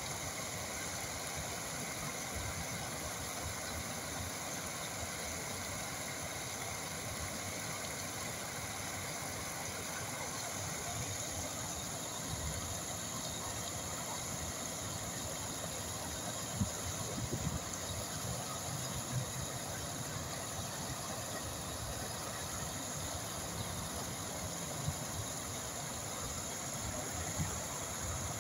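Water flowing steadily, an even rushing noise like a stream, with a few soft low knocks.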